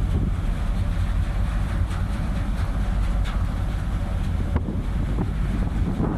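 Wind buffeting the microphone over the steady low rumble of the MV Clansman ferry under way at sea.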